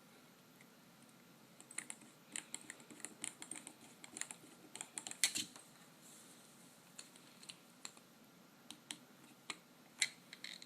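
Small sharp clicks and taps of a precision screwdriver working a tiny screw into an iPhone's housing: a quick run of clicks for a few seconds, then scattered single ticks.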